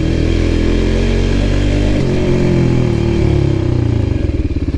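Enduro motorcycle engine running while riding, heard from on board. The engine note drops about two seconds in, and near the end it runs lower with slower, distinct firing pulses.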